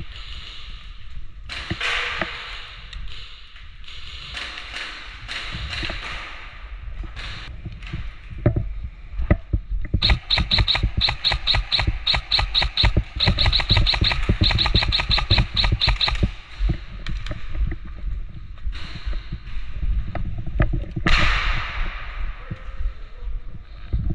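Airsoft gun fired in a rapid string of sharp cracks, about five a second for some six seconds, over rumble and rustle from the player's movement and gear.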